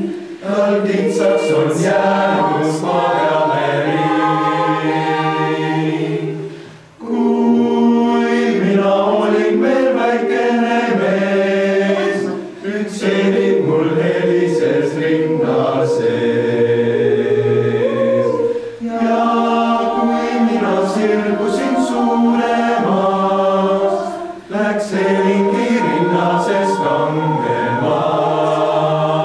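Mixed youth choir of boys and girls singing a cappella in several parts, in long sustained phrases with short breaks between them four times.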